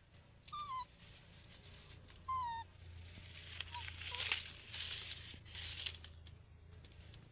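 Baby macaque giving short, high squeaky calls, two clear ones near the start that each fall in pitch and fainter ones later. Rustling of dry leaves and bamboo in the middle as it scrambles into the bamboo.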